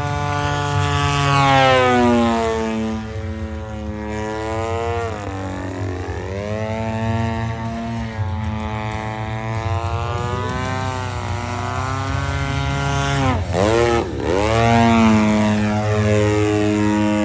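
Radio-controlled aerobatic model airplane flying, its motor and propeller note rising and falling in pitch as it manoeuvres. The pitch drops sharply as it passes close by, once about five seconds in and again near the end.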